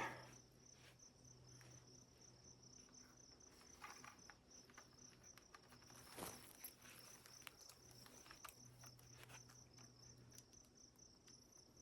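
Faint steady trilling of crickets, a high pulsing chirr, with a few soft clicks and rustles around four and six seconds in.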